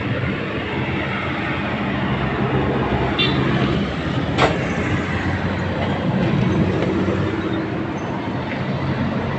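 Steady low mechanical hum over background noise, with a single sharp click about four and a half seconds in.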